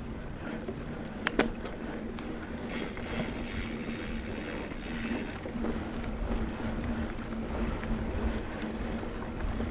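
Wind buffeting the microphone with a low rumble and a faint steady hum, while moving along a trail; one sharp click about a second and a half in.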